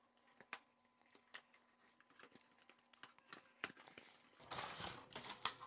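Faint handling of a small cardboard product box as it is opened: scattered light clicks and taps, then rustling of the packaging near the end.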